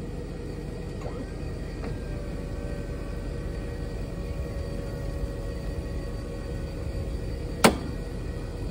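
Truck-mounted boom crane lifting a pallet of beehives: a steady machinery rumble, joined about two seconds in by a steady faint whine, with one sharp knock near the end as the load comes up.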